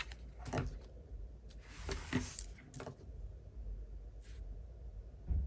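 A few short, soft rustles and taps of sticker sheets and paper being handled, with a low thump near the end.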